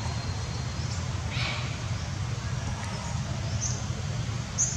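Outdoor ambience with a steady low rumble, a short high squeaky call about a second and a half in, and a few faint high chirps near the end.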